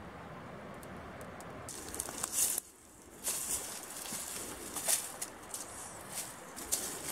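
Wood campfire crackling with a few sharp pops, then, after a short drop about two and a half seconds in, irregular rustling and scuffing of footsteps on rock and dry leaves, with clothing and gear brushing as a man climbs.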